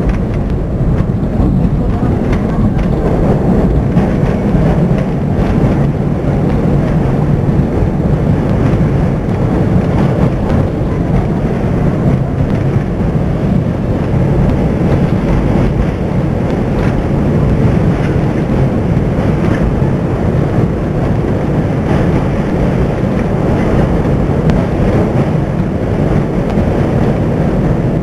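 New York City subway train running along the track: a steady, loud rumble of wheels on rails, with a few faint clicks.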